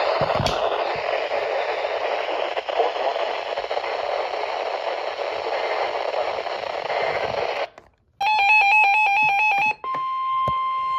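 Weather-radio static hiss that cuts out about eight seconds in, followed by a short burst of rapidly alternating digital data tones of an EAS header and then, near the end, the steady single-pitch NOAA Weather Radio alert tone that announces a new warning.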